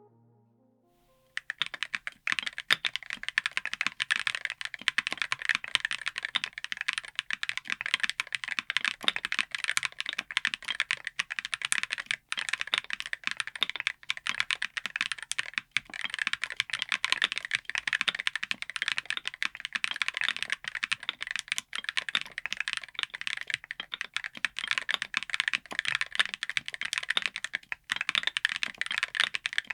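Fast, continuous typing on a keyboard fitted with Wuque Studio Flux Deep Clacky Hall Effect switches, giving a crisp, clacky keystroke sound. The typing starts about a second in, as background music fades out.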